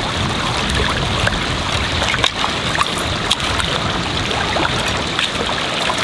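Shallow stream water running and splashing around a metal frying pan, with many small gritty clicks as wet stream sand is scrubbed around the inside of the pan and rinsed out.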